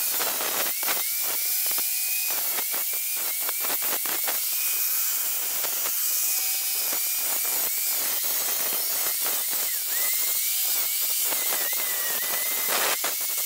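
Electric angle grinder running at speed and grinding steel: a high motor whine over a steady grinding hiss, with the whine sagging and recovering several times as the disc bites into the metal.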